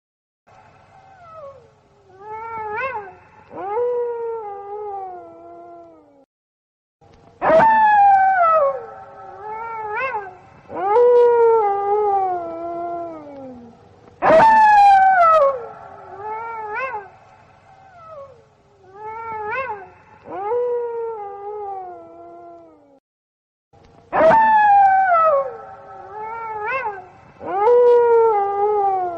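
A chorus of wolves howling. Several voices overlap in long calls that rise and then slide down in pitch, in phrases with a couple of short breaks.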